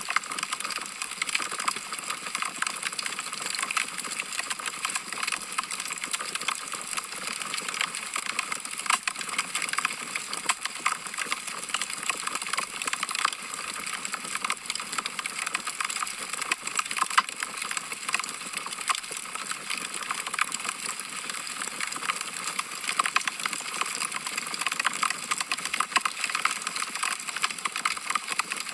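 Logs burning in a fireplace, crackling with a constant run of small snaps and now and then a louder pop.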